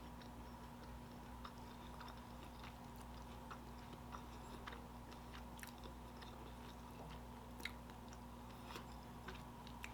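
Faint chewing of a plant-based vegan fish stick: soft, scattered mouth clicks over a steady background hum.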